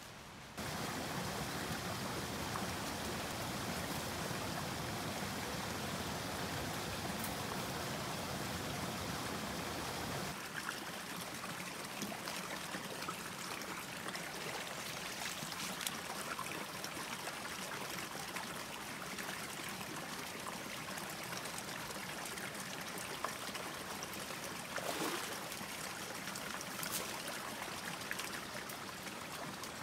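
Stream water pouring out of a stone culvert into a pool, a steady rush and splash. It sounds fuller and deeper for the first ten seconds or so, then lighter, with a few small splashes or knocks.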